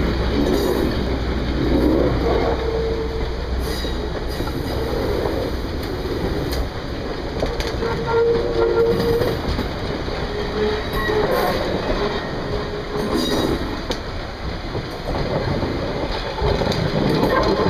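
Passenger coaches rolling slowly over a wooden trestle: steel wheels rumbling and clacking over the rail joints, with a few short high squeals from the wheels, about two seconds in and again around eight to nine seconds in.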